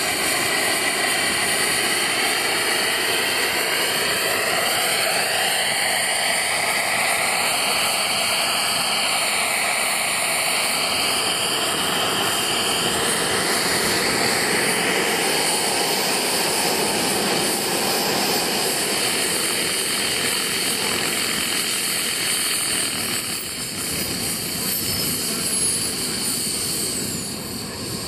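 Gas-turbine engine and rotor of a jet-powered radio-controlled model helicopter in flight: a steady jet whine and rush, its pitch sliding up and down as it passes. The level eases as it comes in to land, and near the end a high whine falls in pitch.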